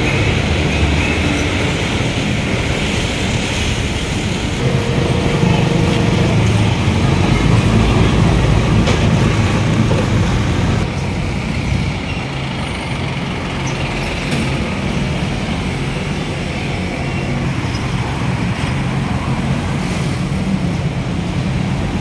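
Busy city-street traffic: motorcycle and jeepney engines running past close by over steady road noise. The engine hum is loudest for several seconds in the middle.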